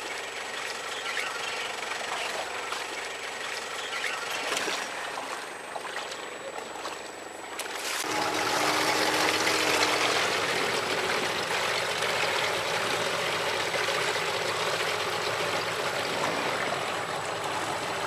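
Water sloshing and trickling around small boats being launched in shallow water. About eight seconds in it switches abruptly to a louder, steady rush of water and wind as a small boat runs under outboard power.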